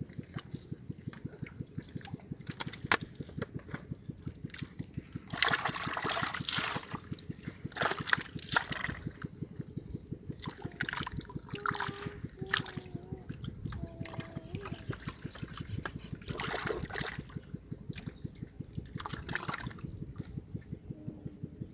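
Muddy water sloshing and squelching in a flooded hole in a mud bank as hands grope and grip a fish inside it, with several louder bursts of splashing. A steady, rapid low pulsing, about four a second, runs underneath.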